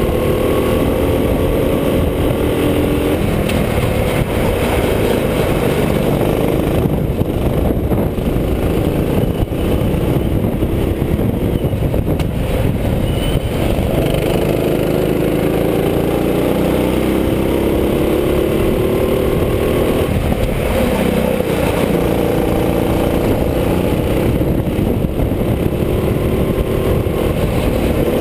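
Go-kart's small engine heard from the driver's seat, its pitch climbing and dropping repeatedly as the kart accelerates and slows around the track.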